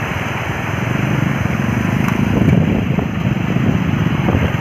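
Muddy river water rushing and churning over rocks through a breach in the riverbank, a steady loud rush, with wind buffeting the microphone.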